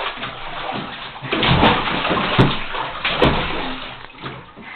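Water sloshing and splashing in a bathtub as a child plays in it, with a few louder splashes.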